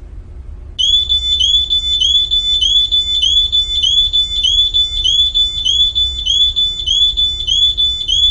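Smoke detector sounding its alarm: a loud, high-pitched beep repeating about three times a second, starting about a second in.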